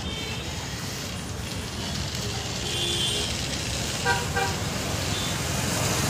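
Steady road-traffic noise, with a vehicle horn tooting twice in quick succession about four seconds in.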